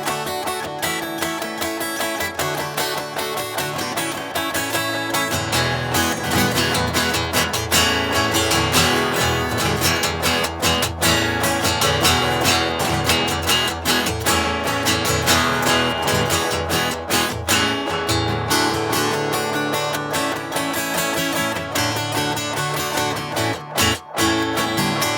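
Taylor GS5 cedar-top acoustic guitar strummed continuously in a flowing chord pattern, with a brief break just before the end.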